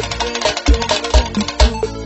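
Live bregadeira band playing an instrumental dance groove, with no vocals. A heavy kick drum hits about twice a second under quick percussion and short repeated high notes.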